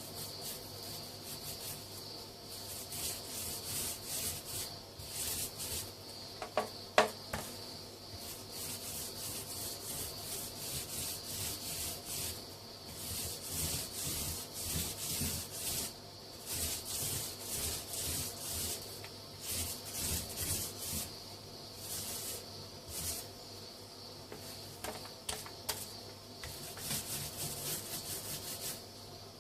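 Sandpaper rubbing back and forth over a plaster join on a wall, in runs of repeated strokes. A single sharp knock about seven seconds in.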